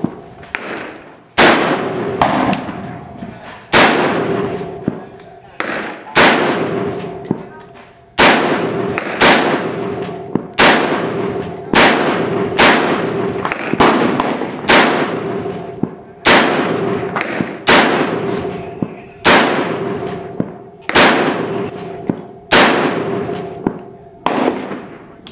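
5.56 mm gas-piston AR-15 rifle firing semi-automatic shots at a steady pace, roughly one every second or so, about twenty in all. Each sharp report is followed by a ringing echo under the covered firing line.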